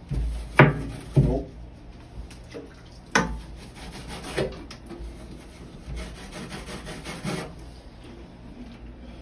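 Long-handled scrub sponge rubbing back and forth on the glass bottom of an empty 50-gallon aquarium, scrubbing off algae with vinegar. There are a few louder strokes in the first half and a quick run of rapid strokes near the end.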